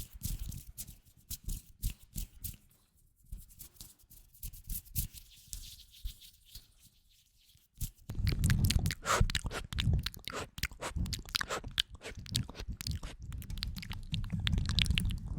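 Close-miked ASMR trigger sounds: sparse light clicks and taps at first, then from about eight seconds in a denser, louder crunchy rubbing and crackling.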